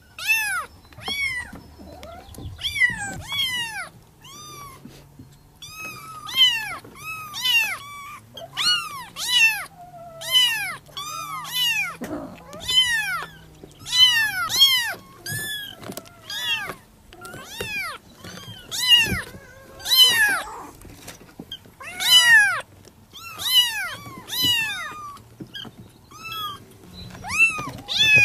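Persian kittens mewing over and over: short, high-pitched cries, each rising and falling in pitch, one or two a second and sometimes overlapping. The kittens are calling for their mother.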